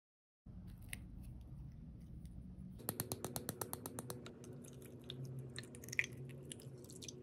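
Faint, light plastic clicks and a quick run of ticking, about a second long, from small sequins and pieces being dropped into and handled against a clear plastic L.O.L. Surprise capsule, with one sharper click near the end.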